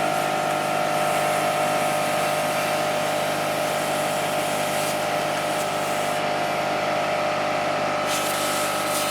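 A steady machine hum with a hiss of air over it, starting abruptly and running at an even level.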